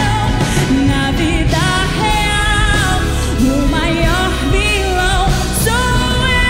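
Live music: a woman sings gliding, wavering notes over an orchestra with piano and a band.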